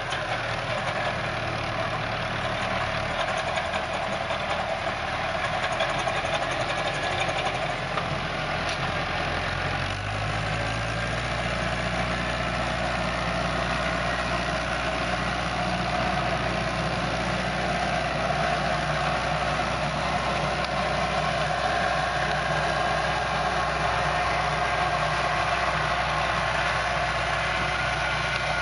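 Fiat 65-46 DT tractor's diesel engine running steadily while pulling a pneumatic seed drill; about ten seconds in the low engine note shifts and then holds steady.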